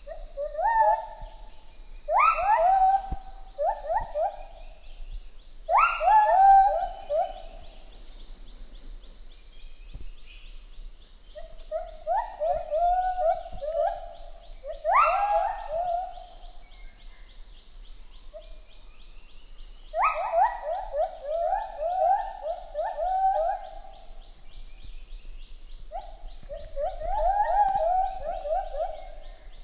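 Lar gibbons singing: bouts of loud hooting notes that sweep up and down in quick, evenly spaced series, about eight phrases with short pauses between, over a steady high buzz.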